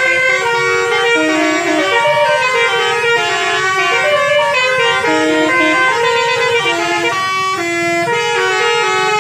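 Basuri multi-tone bus horn playing a fast melody, its notes changing every fraction of a second with several tones sounding together, loud and without a break.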